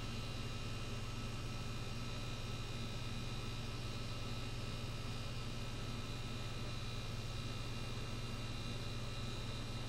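Steady low electrical hum under a faint hiss.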